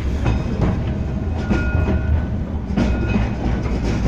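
A Blackpool tram running along the track, heard from inside the car: a steady low rumble with several clacks from the wheels over rail joints, and a faint high whine in the middle.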